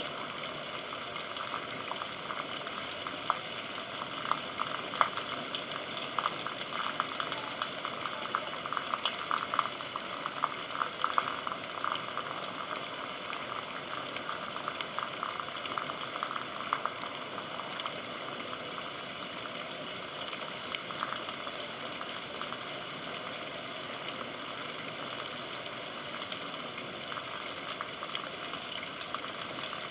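Steady rain, with many close drops splashing in quick ticks, thickest through the first half.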